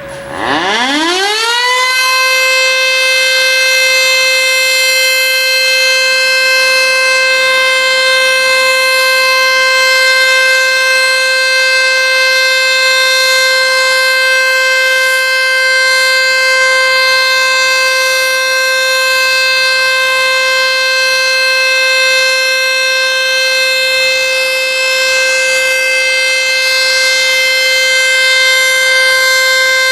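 ACA Screamer S-5 outdoor warning siren winding up in pitch over about two seconds, then holding a loud, steady Alert tone.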